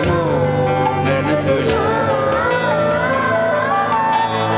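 Live unplugged band music: acoustic guitar with a wavering, gliding melodic lead line over a steady low accompaniment.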